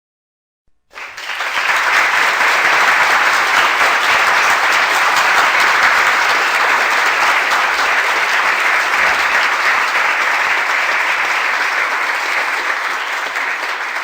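Crowd applause sound effect: many people clapping in a dense, steady patter that starts about a second in and holds to the end, easing slightly near the end.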